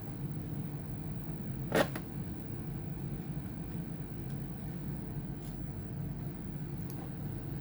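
A single sharp click about two seconds in, with a couple of faint ticks later, over a steady low hum.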